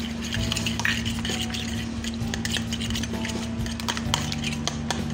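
A fork stirring and beating a raw egg mixture with chopped vegetables in a plastic bowl: quick, continuous clicking and scraping of the fork against the bowl.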